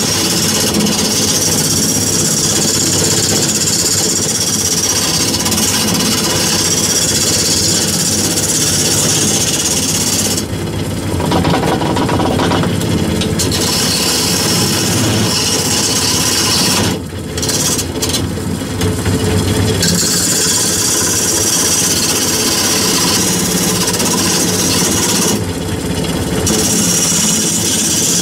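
Wood lathe spinning a large wooden blank while a hand-held turning tool cuts it, a steady rough shearing hiss of the cut over the lathe motor's hum. The cutting noise drops out briefly a few times as the tool comes off the wood, leaving the motor running.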